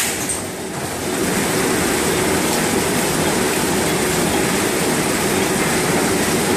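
Automatic mooncake packing line running: conveyors and a horizontal pillow-packing machine making a steady mechanical rattle and hum, dipping slightly just after the start and then even from about a second in.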